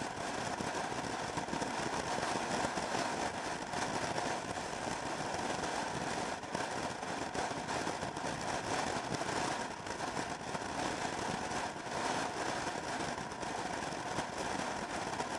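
Motor scooter riding at highway speed: steady wind rush on the microphone mixed with the drone of the engine, with no gear changes or big changes in speed.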